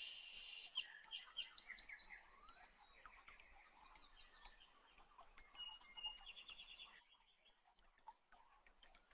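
Faint birds chirping and trilling, with clusters of quick repeated high notes.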